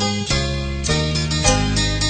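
Background instrumental music: plucked-string melody over a steady bass, several notes a second.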